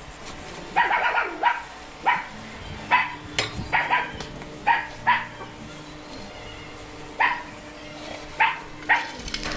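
A dog barking repeatedly: about a dozen short barks in irregular bursts, over a faint steady hum.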